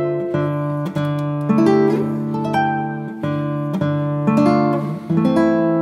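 Background music: acoustic guitar picking notes and chords, a new note struck about every half second.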